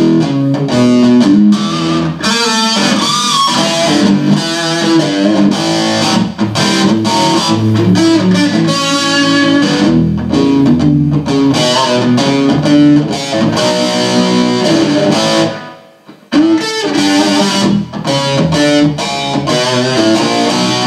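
1980 Gibson Les Paul electric guitar being played, a run of picked notes and chords that stops briefly about three-quarters of the way through, then starts again.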